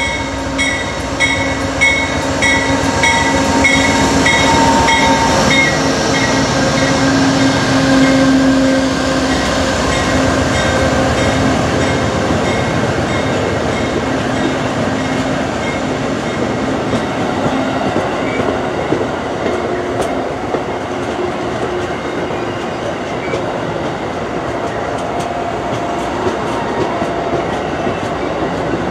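Amtrak Genesis diesel locomotive passing close by with its bell ringing about twice a second for the first six seconds and its engine hum loudest about eight seconds in, followed by the steady rumble and clatter of stainless-steel Amfleet coaches rolling past.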